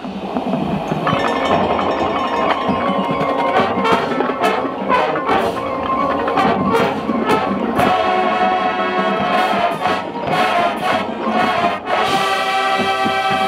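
Marching band playing: brass chords over drumline and front-ensemble percussion. There is a run of sharp percussion hits in the middle, and held brass chords near the end.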